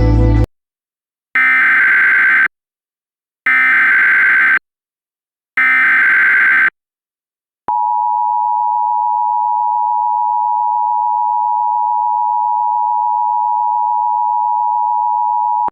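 Emergency Alert System tones: three one-second bursts of the SAME digital header, a second apart, then the steady two-tone EAS attention signal from about eight seconds in. The tones announce an emergency alert, here a tornado warning.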